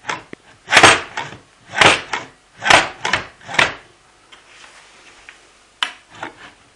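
Vega VER 1500 plunge router being worked by hand, its body knocking against the base and stops in a run of sharp clunks: about two a second for the first four seconds, then a pause and two more near the end. The plunge springs are stiff.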